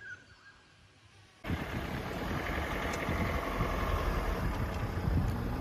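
After a quiet second and a half, a vehicle's engine and road noise start suddenly and run steadily and loud.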